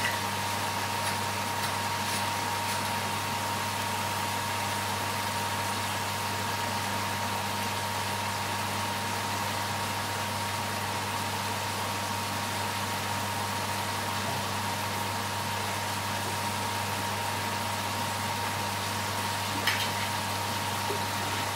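Steady low mechanical hum with a thin, high steady whine above it, like a running motor or fan.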